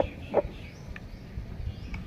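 Short, separate calls of an animal: two close together at the start and a fainter one about a second in.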